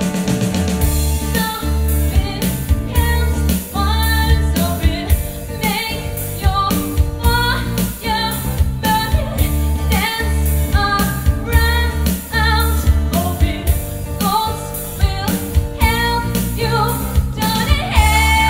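A woman singing a song in a strong, wavering voice over musical accompaniment with a steady, even beat and deep bass.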